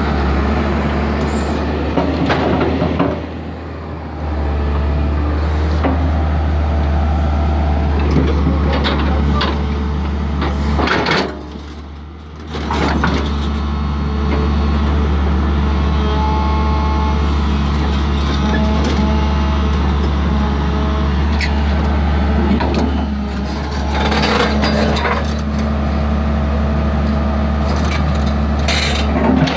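Tracked excavator's diesel engine running under hydraulic load as the bucket presses on the ground to work the machine back onto its track chain. The engine note dips briefly twice, about three seconds in and again around eleven seconds.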